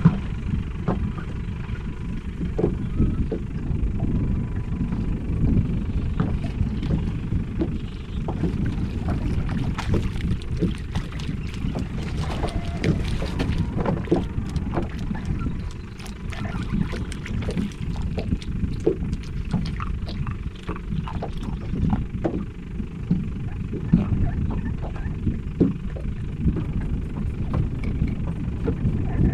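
Steady wind noise on the microphone over small waves lapping against the hull of a small boat at rest, with many light clicks and taps of water against the boat.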